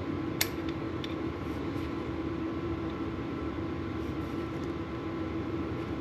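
Steady low hum with one sharp metallic click about half a second in and a few faint ticks after it: hand tools working at a plug in a brake caliper's line port.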